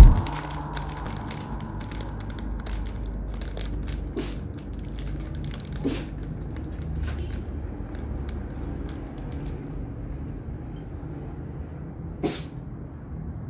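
Soft rustling and handling noise of clothing over a low steady rumble, with faint scattered clicks and a few short sharper taps, the clearest about twelve seconds in.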